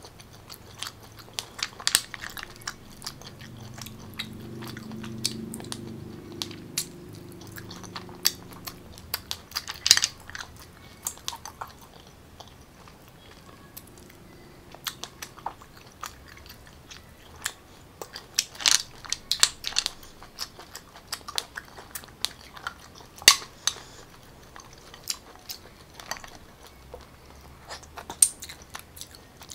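Close-up chewing of sea snail meat (spotted babylon and garlic snails in butter sauce), wet chewing and smacking with many sharp irregular mouth clicks. A low hum sounds from about three to eight seconds in.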